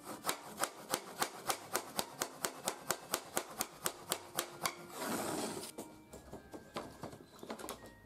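Rapid light hammer taps, about five or six a second, on the wooden frame rail of a fusuma sliding door, knocking the frame loose from the door panel. About five seconds in they give way to a brief noisy rush, followed by a few scattered knocks.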